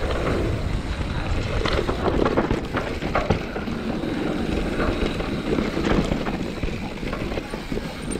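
Mountain bike descending a dirt trail: tyres rolling and crunching over the dirt with wind rushing on the microphone, broken by frequent clicks and rattles from the bike jolting over bumps. It eases off a little near the end as the bike slows.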